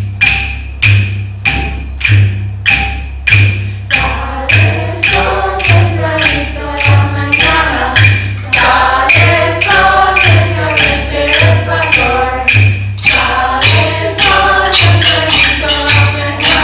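Hand drums keep a steady beat of deep thumps about every 0.6 s with sharp higher strokes between them; about four seconds in, a group of voices starts singing over the beat.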